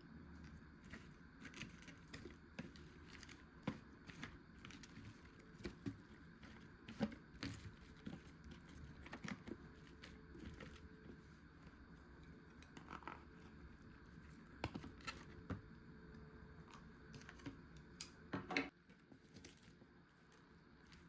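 Faint, scattered clicks, taps and brief crinkles of plastic food packaging and utensils being handled, with a short flurry of handling about eighteen seconds in.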